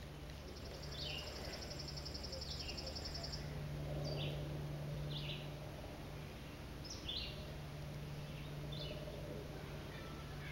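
Birds calling in woodland: short high chirps falling in pitch, repeated every second or two, with a fast high trill during the first three seconds, over a steady low hum.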